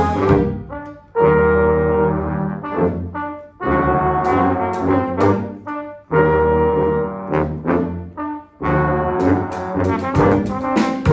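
Low brass choir of trombones and sousaphones playing a pop mashup arrangement live, in held chords with a deep bass line, phrase after phrase with brief breaks between them.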